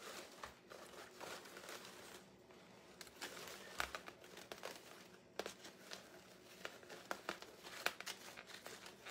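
Faint rustling and crinkling of wired ribbon and deco mesh as hands work a bow into a wreath, with scattered small clicks.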